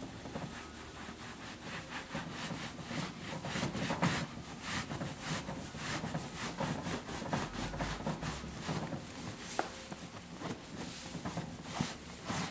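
Cleaning cloth rubbing across a leather sofa cushion in a steady run of short strokes, wiping leather cleaner off the surface.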